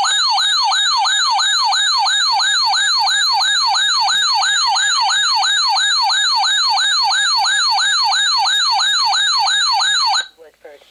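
Radio Shack 12-519 weather alert radio sounding its alarm siren after decoding an incoming alert header. It is a loud, fast repeating sweep, about three a second, and it cuts off suddenly near the end.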